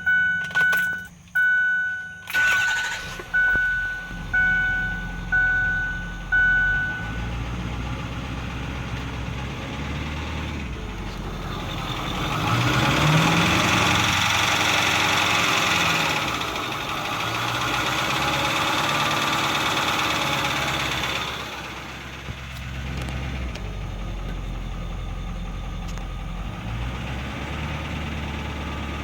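Ford 6.4 L Powerstroke twin-turbo V8 diesel starting to a repeating dash warning chime that dings about nine times, then running and being revved up twice before settling back to idle. It carries a ticking that is quite loud under acceleration and barely noticeable at idle; its cause is unknown to the owner.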